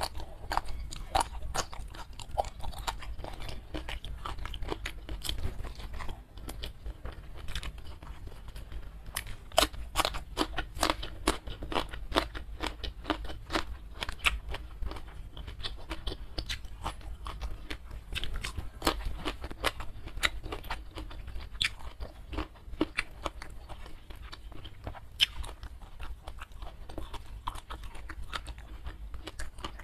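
Close-miked eating: crisp crunching bites into raw green beans and steady chewing of a mouthful, a dense, irregular stream of sharp crackles and wet clicks.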